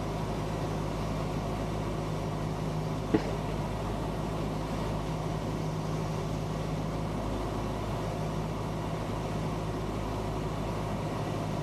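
Cessna 172M's four-cylinder Lycoming engine and propeller droning steadily in flight, heard inside the cabin with a haze of wind noise. A brief click about three seconds in.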